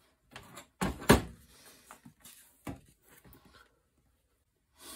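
A thump about a second in as things are set down on a metal workbench, then paper rustling and a few light taps as a thick paperback book is opened and its pages leafed through.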